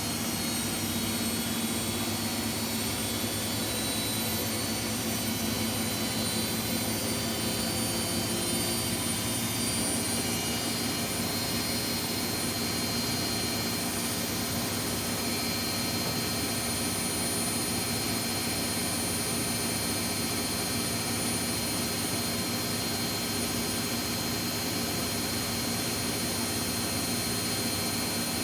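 Front-loading washing machines in a high-speed spin cycle: a steady whine of spinning drums and motors with a low hum and high, even tones over a rushing hiss.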